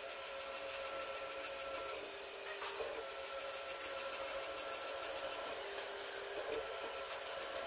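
Stepper-motor-driven automated pillar drill running as it drills a graphite block. A short steady whine from the stepper drive comes about every three and a half seconds, twice here, each ending in a click.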